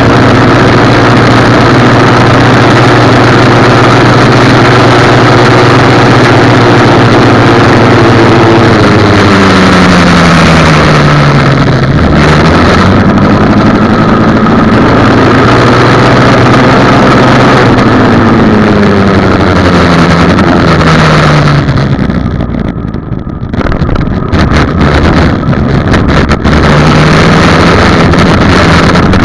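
Dirt bike engine running as the bike is ridden, very loud. Its pitch holds steady, drops as the bike slows about ten seconds in, climbs again, and drops again a little after halfway. The sound breaks up unevenly for a few seconds before settling at a low pitch near the end.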